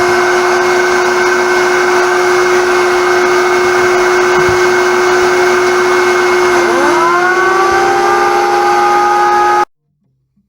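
Shop vacuum running with a steady whine; about six and a half seconds in, a jointer's electric motor starts and spins up alongside it with a rising whine that levels off. Both cut off suddenly near the end.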